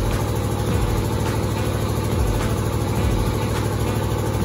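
A heavy engine running steadily at idle, a constant low drone.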